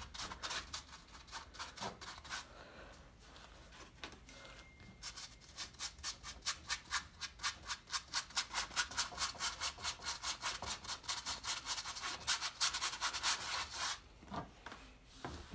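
Bristle paintbrush scrubbing paint onto a stretched canvas. A few scattered strokes come first, then quick, even back-and-forth strokes at about four a second through most of the middle, easing off near the end.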